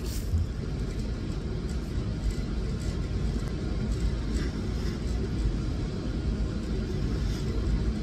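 Steady low rumble, with a few faint clicks from the plastic 20V lithium-ion battery pack of a cordless leaf blower being handled and pulled out to be charged.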